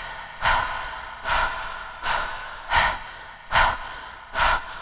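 A young woman's rapid, heavy breathing: about six sharp, even breaths a little under a second apart, each fading away, the sound of someone in distress.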